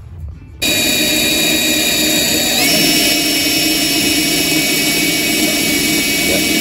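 Electric drill running steadily under load, boring through metal. It starts about half a second in, and its whine steps up in pitch about two seconds later.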